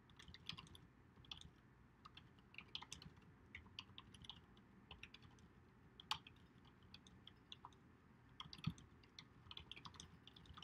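Faint typing on a computer keyboard: a run of quick, irregular keystrokes as a line of text is typed, with a few louder taps among them.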